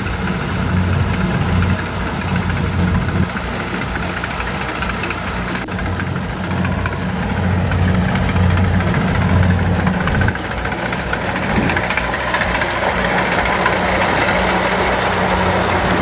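Kubota DC70 crawler combine harvester running under load while cutting and threshing rice: a steady diesel engine drone with machinery clatter, growing a little louder and harsher near the end.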